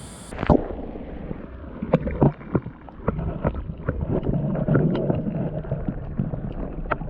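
Muffled water sloshing and gurgling heard from a camera held underwater, with scattered clicks and knocks throughout, beginning with a splash as it goes under.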